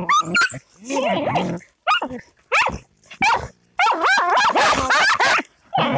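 Two dogs barking and yelping in short, sharp bursts, running into almost continuous barking about four seconds in, as they dig at a cornered opossum in its hole.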